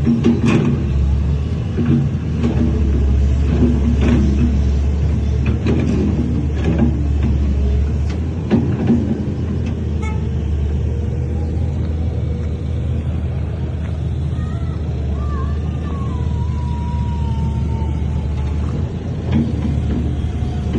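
Heavy diesel earthmoving machinery running with a steady low drone, with repeated metallic clanks and knocks through the first half.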